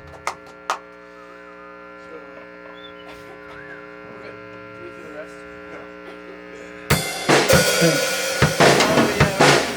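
Amplifier hum and buzz between songs, with the last few claps of applause right at the start. About seven seconds in, a drum kit comes in loudly with irregular snare and cymbal hits over the amp noise.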